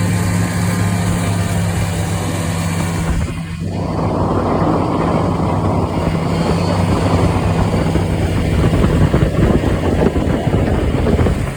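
The fan-cooled two-stroke engine of an Arctic Cat Puma snowmobile runs steadily under way. From about three and a half seconds in, a loud rushing noise joins it.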